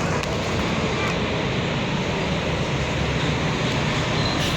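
Tour bus diesel engine running with a steady low drone as the bus manoeuvres.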